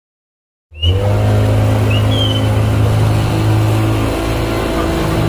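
Motorboat engine running at a steady speed, heard from on board; it cuts in abruptly about a second in.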